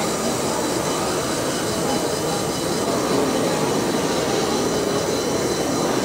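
Steady, unbroken mechanical rumble and whir while a radio-controlled model dump truck tips its bed of soil.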